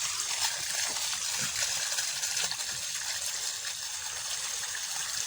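Water gushing steadily from a broken irrigation line fitting, a continuous even hiss.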